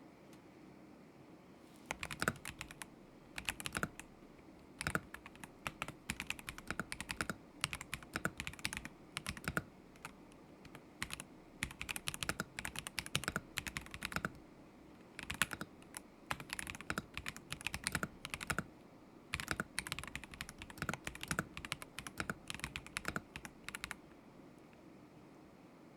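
Typing on a KZZI K75 Pro mechanical keyboard with Moment linear switches: quick runs of key clacks with short pauses. It starts about two seconds in and stops a couple of seconds before the end.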